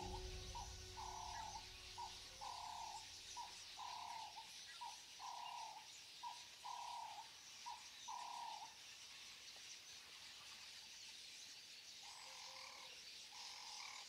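Faint repeated animal calls, each a short note followed by a longer one, six such pairs in a row, then a pause and two more calls near the end.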